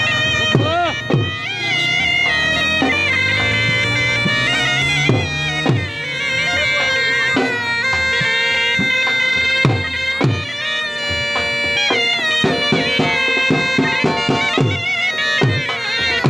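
Bagpipe music: a melody played over a steady drone, with drum beats that come quicker in the second half.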